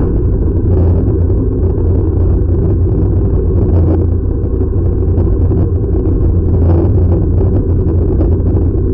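Drill press running steadily as its twist bit bores through a Nokia 3310's plastic casing: an even, low drone with little treble.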